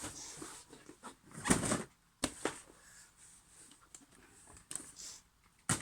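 Packaging being handled during an unboxing of boxed puzzle cubes: a few rustles and sharp clicks, the sharpest just before the end.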